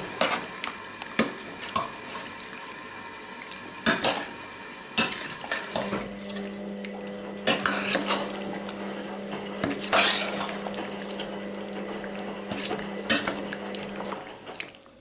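Cooking utensil clinking, knocking and scraping against cookware as food is stirred, in irregular strikes. A steady low hum joins about six seconds in and stops near the end.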